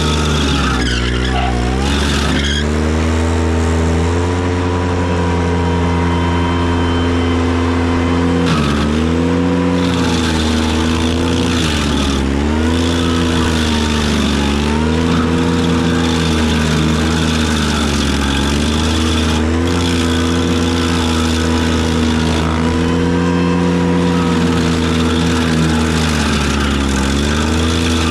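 Ventrac tractor engine driving a KC220 stump grinder, running hard at full throttle; its pitch sags and recovers several times as the cutter wheel bites into the stump and pulls the engine down under load.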